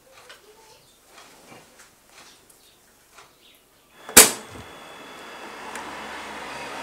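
Faint rustling and soft ticks of thread being drawn through a felt toy while hand-sewing. A little over four seconds in there is one sharp loud click, then a steady hiss with a low hum that grows slightly louder.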